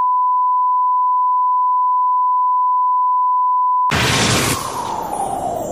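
Steady, unbroken beep of a colour-bar test tone, which cuts off about four seconds in. In its place comes a sudden loud rush of noise and a tone that slides steadily down in pitch, the opening sound effect of an animated countdown intro.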